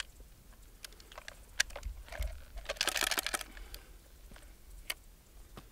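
Scattered light clicks and a brief scraping rattle, about three seconds in, from hands working a High Standard 10B bullpup 12-gauge shotgun; no shot is fired.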